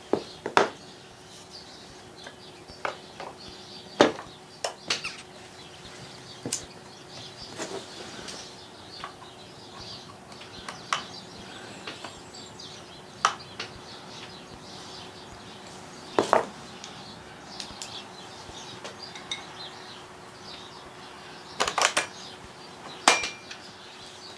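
Irregular metallic clicks and clinks of chainsaw parts and tools being handled during assembly, with a few louder knocks near the end, over a faint steady hum.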